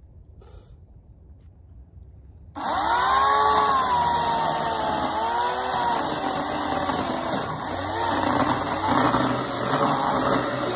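Homelite 14-inch 9-amp corded electric chainsaw starting suddenly about two and a half seconds in and cutting into a fallen locust limb. Its motor whine rises and dips again and again as the chain bites into the wood.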